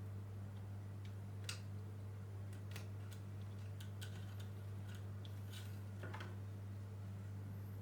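Irregular light clicks and taps of small parts and hand tools being handled during reassembly, the sharpest about a second and a half in, over a steady low hum.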